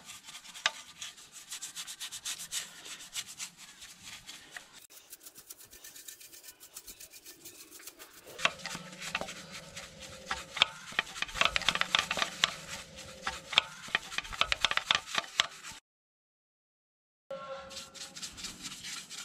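Bristle brush scrubbing degreaser over a diesel engine's cylinder head, fuel rail and injector pipes: rapid scratchy back-and-forth strokes, louder and busier from about halfway through. The sound cuts out completely for about a second and a half near the end.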